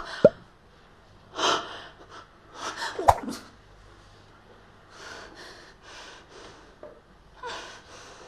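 A young woman's gasps and quick, flustered breaths, with a short voiced squeak about three seconds in. A few softer breaths follow.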